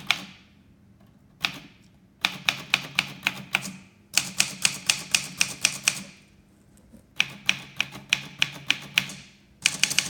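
1970 Smith-Corona Corsair Deluxe manual typewriter being typed on: sharp keystrikes in quick runs of about six a second, broken by pauses of about a second.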